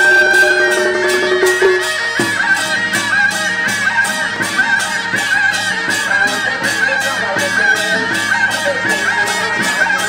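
Temple procession music: a shrill suona-type reed horn plays a wavering, ornamented melody over a steady, evenly spaced percussion beat.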